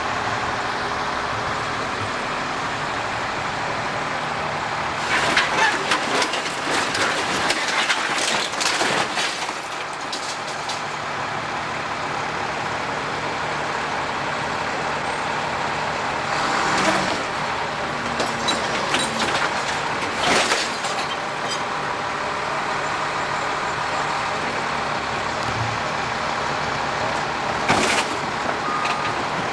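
Diesel engine of heavy demolition equipment running steadily while it tears into a building, with bursts of crashing and crunching debris several seconds in, again a little past midway, and near the end. A reversing beeper starts just before the end.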